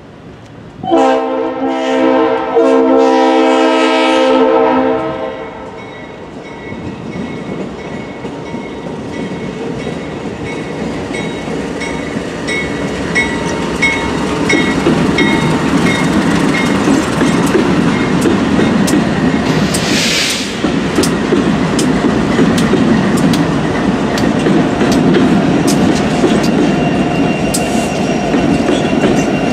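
An approaching freight train's diesel locomotive sounds its horn about a second in, a loud chord lasting about four seconds with brief breaks. Then the BNSF diesel locomotives' engines rumble, growing louder as they pass, with wheels clicking over the rail joints and a short hiss about twenty seconds in.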